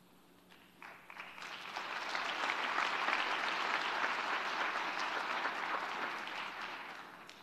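Audience applauding, starting about a second in, swelling to a steady level, then dying away near the end.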